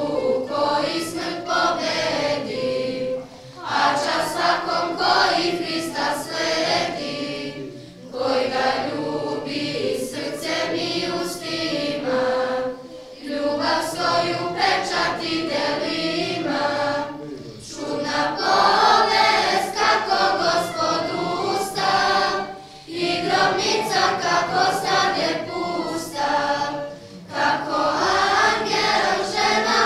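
Church choir singing in phrases of about four to five seconds, each followed by a short break.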